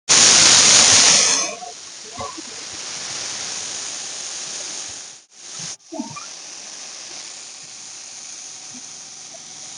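Russell's viper hissing in defence: a loud forceful hiss for about a second and a half, then a softer, longer hiss that breaks off briefly around the middle.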